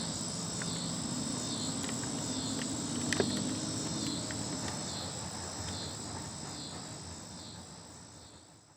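Insects chirring steadily: a high, unbroken note with a pulsing trill repeating under it, over a low hum. There is a single sharp click about three seconds in, and everything fades out near the end.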